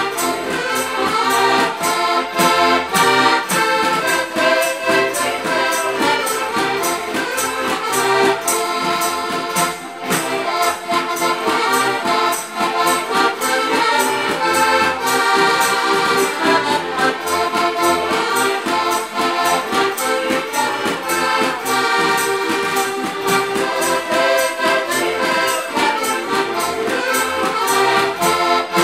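Several diatonic button accordions (heligónky) playing a Slovak folk tune together: melody over a steady, even bass-and-chord pulse.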